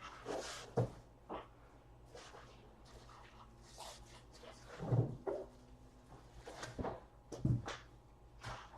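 Handling noise from objects on a tabletop: scattered light knocks, taps and rustles, with two louder thumps about five and seven and a half seconds in.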